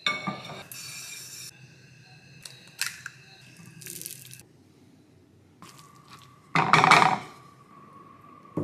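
Frying pan handled on a gas stove and eggs cracked into it: a string of separate clicks, knocks and short scraping noises, the loudest a rough burst lasting under a second about seven seconds in.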